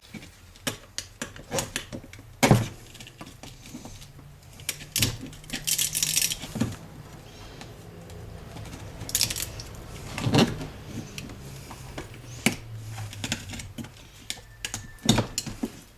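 Small metal parts of a vacuum cleaner motor clicking, knocking and clinking as it is taken apart by hand. The knocks are scattered, with a short stretch of scraping rattle about six seconds in and another around nine seconds.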